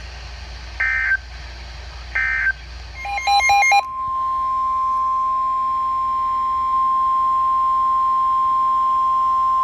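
NOAA Weather Radio alert signalling. Two short bursts of SAME digital data tone come about a second and two seconds in; these are the end-of-message bursts closing the flood warning. A brief warbling chirp follows at about three seconds, and then the steady 1050 Hz warning alarm tone holds for about six seconds, announcing the flash flood warning that follows.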